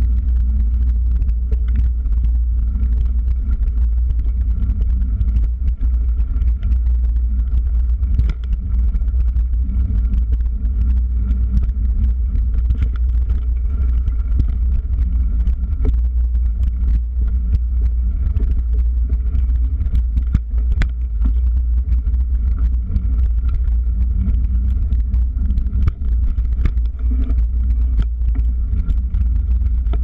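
Steady low wind rumble buffeting the microphone of a camera riding on a mountain bike moving fast along dirt singletrack, with frequent small clicks and rattles from bumps in the trail.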